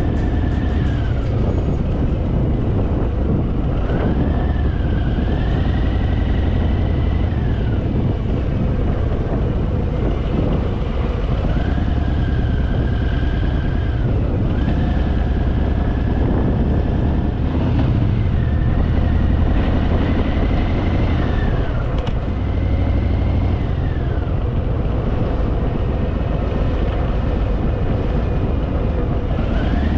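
Harley-Davidson Fat Boy's V-twin engine running on the move under a steady heavy low rumble. Its pitch rises, holds and drops again every few seconds as the throttle opens and closes.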